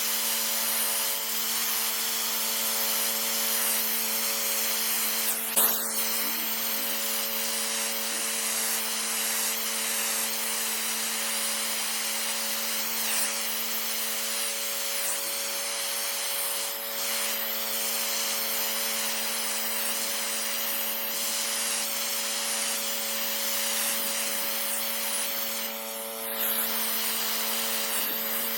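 Pressure washer spraying a concrete driveway: a steady loud hiss of water jetting onto the surface over a constant machine hum. There is one sharp click about five and a half seconds in.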